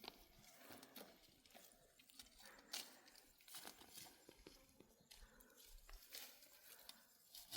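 Near silence with faint, scattered clicks and rustles, one a little louder about three seconds in.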